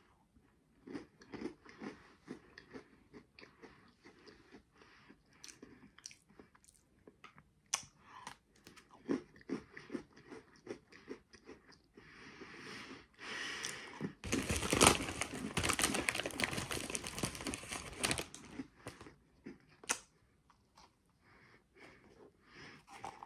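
Close-up crunching and chewing of a Cinnamon Bun Oreo cookie, in many quick irregular crunches. About halfway through, a louder stretch of scratchy noise lasts about four seconds.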